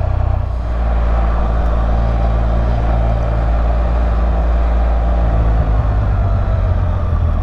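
2016 Can-Am Spyder RT Limited three-wheeler running steadily under way, its three-cylinder engine note mixed with wind and road noise; the engine note changes about six seconds in.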